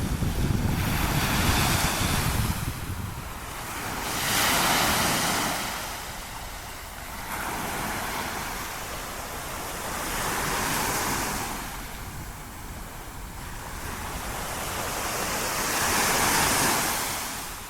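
Small waves breaking and washing up a sandy beach. The surf swells and fades four times.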